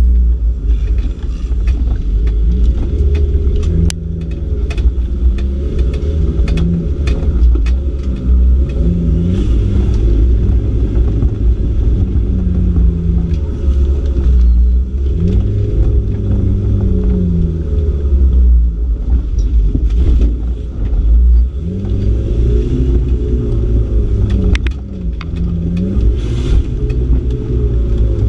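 Off-road trial car's engine heard from inside the stripped cabin, revving up and dropping back again and again as the car is driven hard. Frequent sharp knocks and rattles run through it.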